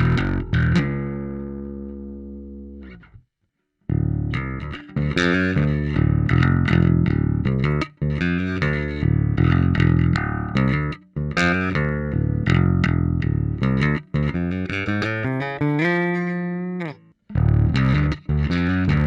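Ibanez Jazz bass played through a Bass Amuser tube overdrive pedal into an Ampeg SVT amp profile. A held note rings out and dies away, then after a short pause comes a steady run of plucked notes, with a slide down in pitch near the end before a new phrase starts.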